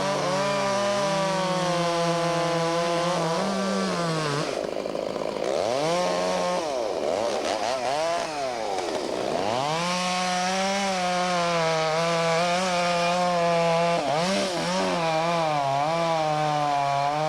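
Chainsaw running while cutting the face into a standing tree; about four seconds in, its engine pitch dips and recovers several times as the saw loads up in the cut, then it settles back to a steady high run.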